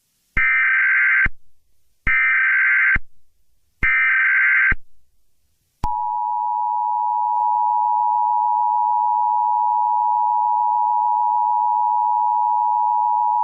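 Emergency Alert System SAME header: three short bursts of screeching data tones, about a second each, followed a second later by the steady two-tone EAS attention signal, which starts about six seconds in and holds.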